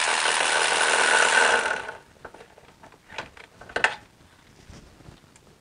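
Cordless electric ratchet running steadily with a single fixed whine, spinning a bolt out, then stopping abruptly about two seconds in. A few light metallic clicks follow.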